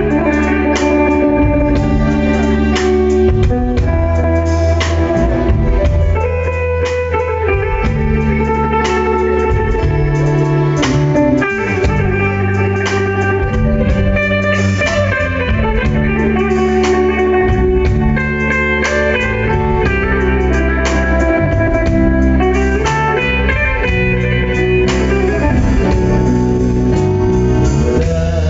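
Instrumental introduction of a Hebrew pop song: a band playing sharply plucked notes over a strong low bass line, with no vocals.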